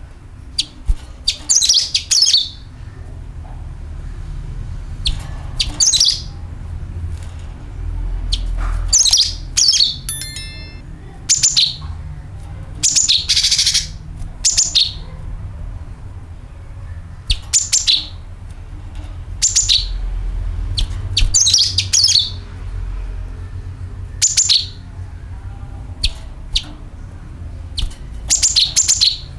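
Cucak kinoi songbird giving short, sharp, high chirping call phrases every second or two, with a quick rattling run of ticks about ten seconds in, over a steady low hum.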